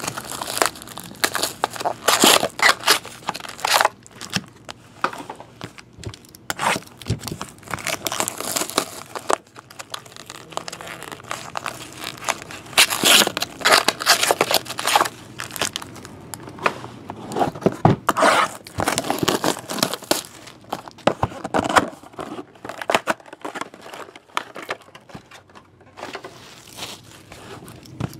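Plastic wrappers of trading-card packs being torn open and crinkled by hand, in irregular bursts of crackling with the odd sharp knock.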